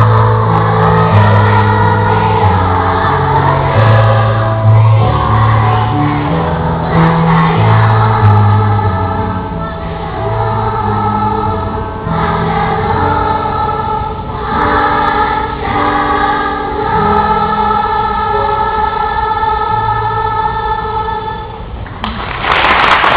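A song with choral singing over instrumental backing. About a second before the end the music gives way to a crowd cheering and shouting.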